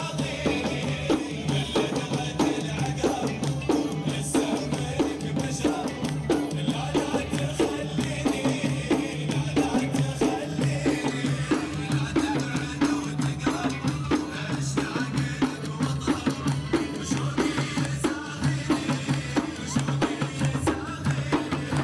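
Emirati al-ayyala performance: men beat shoulder-slung double-headed drums in a steady, driving rhythm while a group of men chant together in low voices.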